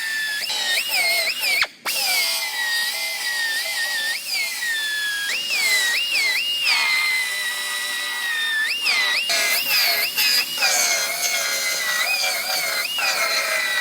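High-speed power tool cutting the sheet-metal quarter panel of a Honda Civic: a high whine that jumps up in pitch with each trigger pull and sags lower as the tool bites into the metal, repeated many times, with a brief break about two seconds in.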